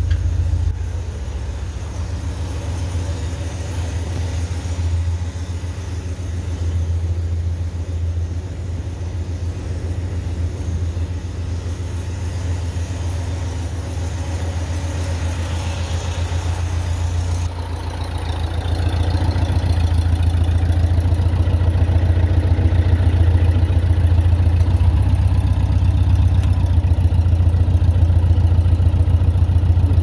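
Air-cooled flat-four engine of a Volkswagen T1 bus idling steadily, with the air conditioning running. It gets louder about two-thirds of the way in, heard from close to the open rear engine bay.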